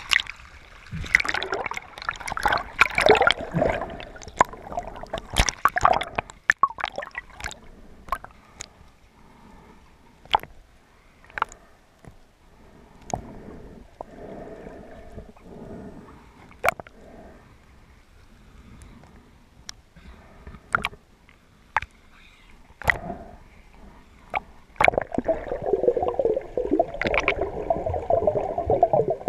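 Water splashing and sloshing around an underwater camera at the surface for the first few seconds, then the muffled sound of being submerged, with scattered sharp clicks. Near the end a louder rushing, bubbling water noise comes in.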